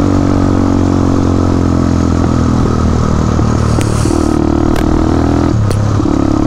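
Motorcycle engine running while being ridden, its note stepping up and down a few times. About three sharp pops, from the exhaust popping or misfiring, come in the second half.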